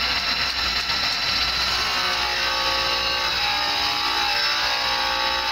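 Small abrasive wheel of an internal grinder running against the inside race of a large steel bearing ring, grinding steadily with an even whine.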